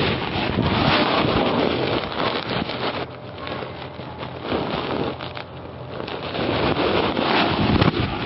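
Wind buffeting the microphone: a steady rushing noise with no voice in it, louder for the first three seconds, easing in the middle and swelling again near the end.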